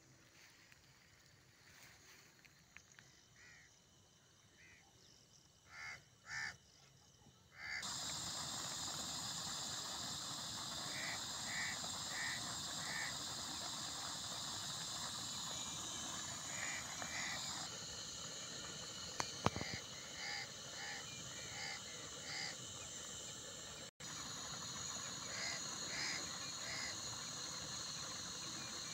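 Steady hiss of a portable gas-cylinder stove burner with meat curry cooking in the pan on it, starting abruptly about eight seconds in; before that the sound is faint. A bird calls in short notes, in runs of three or four.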